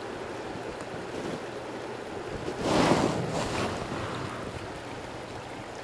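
River current running steadily, with a louder splashy whoosh about three seconds in.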